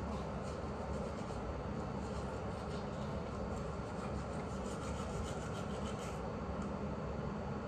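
Teeth being brushed with a manual toothbrush: steady scrubbing strokes, over a low steady hum.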